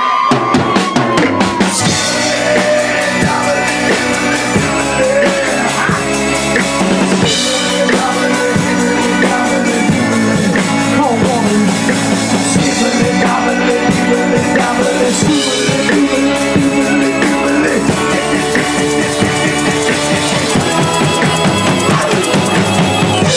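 A live band playing loud amplified music over a full drum kit, with bass drum and snare keeping a steady beat.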